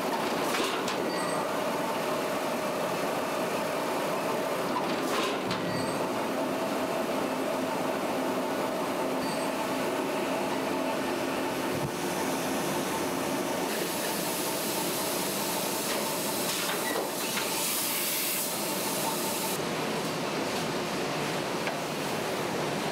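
Toilet-paper rewinding and log-handling machinery running with a steady mechanical clatter and hum. There are three sharp knocks about four seconds apart, and about fourteen seconds in a hiss starts that lasts some six seconds.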